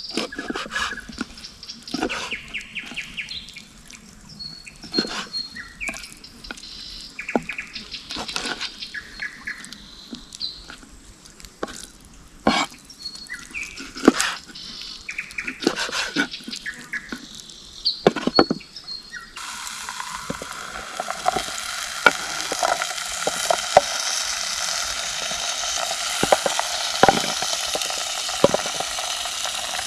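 Scattered knocks and clatter of cooking things being handled, then, about two-thirds of the way through, food suddenly starts sizzling as it hits the hot pan, and keeps sizzling steadily with small clicks over it.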